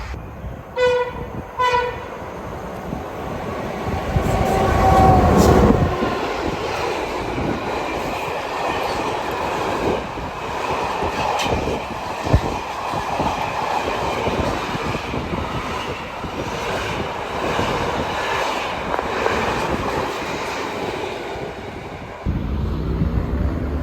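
A train horn gives two short blasts. The train then passes with a loud rumble about four to six seconds in, followed by a long run of wheels rolling and clicking over the rail joints.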